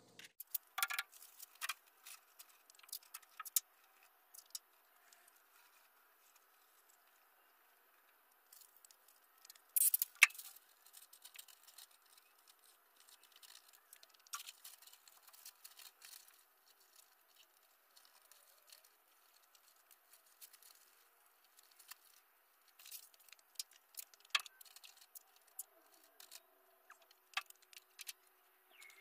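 Masking paper and tape being handled: faint, scattered crinkles and clicks, with one sharper snap about ten seconds in.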